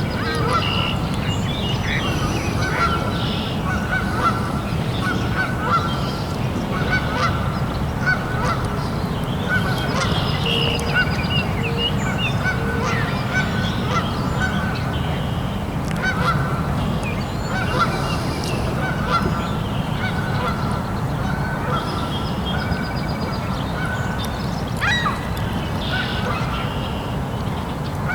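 Birds honking, many short calls repeating about once a second over a steady low rumble.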